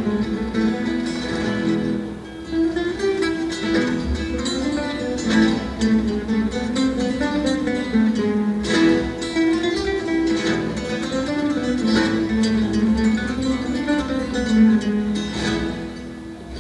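A youth guitar ensemble playing a melody together on acoustic guitars under a conductor, dying down near the end.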